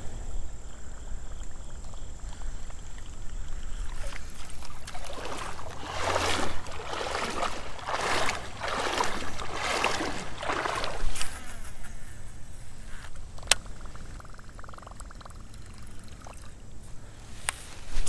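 Legs wading through shallow creek water: a run of about six sloshing steps, roughly one a second, in the middle, then a couple of sharp clicks near the end.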